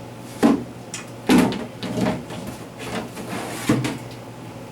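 Refrigerator glass shelf and crisper drawer being pulled out of their runners: a few knocks and clunks with sliding scrapes between them. The loudest knock comes about a second and a half in.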